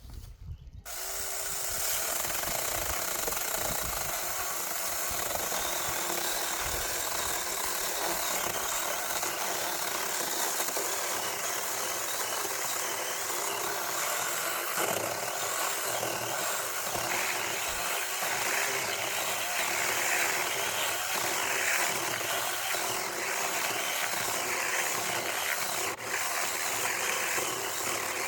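Small battery-powered mini chainsaw running steadily, cutting wood, starting about a second in.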